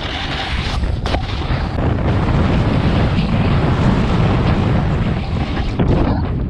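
Wind buffeting a GoPro Hero 7 Black's microphone while riding downhill on a snowboard: a loud, rumbling rush that builds slightly.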